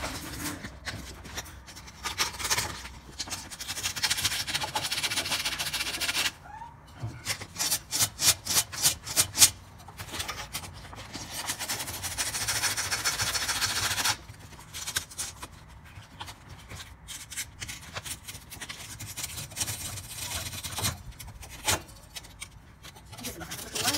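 Sandpaper rubbed back and forth over a gas water heater's pilot assembly, scouring oxidation and burn deposits off the igniter so it sparks readily again. Long steady rubbing passes, a run of quick short strokes about three or four a second around a third of the way in, and lighter, scattered scrapes in the second half.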